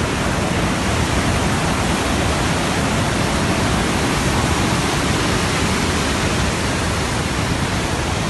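Fast-flowing water rushing, a loud, steady, unbroken noise.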